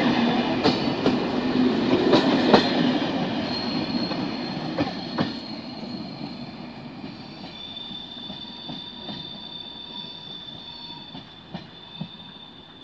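Corail passenger train rolling past on the rails, wheels clicking over rail joints, with a thin high squeal from the wheels in the second half. It fades steadily as the train draws away.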